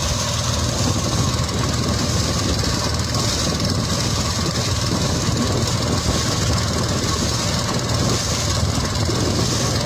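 Loud, steady rushing roar of strong wind from a waterspout, cutting in and out abruptly.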